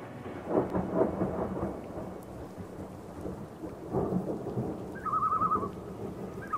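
Rumbling, crackling noise like a thunderstorm with rain, louder in swells about half a second to a second and a half in and again about four seconds in. A short warbling, whistle-like call comes about five seconds in.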